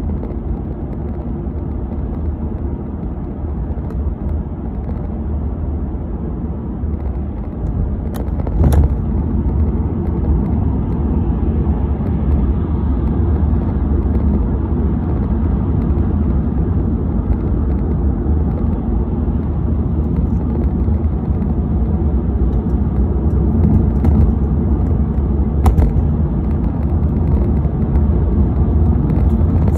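Steady low rumble of road and engine noise inside a car cabin at motorway speed, with a couple of brief clicks or knocks.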